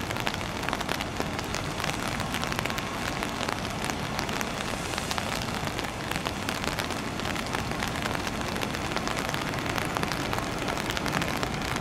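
Heavy rain falling steadily, with many sharp drop hits close by.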